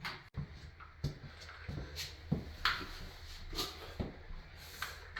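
Irregular light knocks and scuffs, about one a second, as a porcelain toilet is shifted and lined up on its wax ring.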